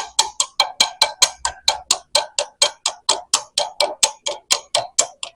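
Chipping hammer rapping steadily on a freshly laid 7018 stick-weld bead, about five sharp metallic strikes a second, knocking the slag off the first pass.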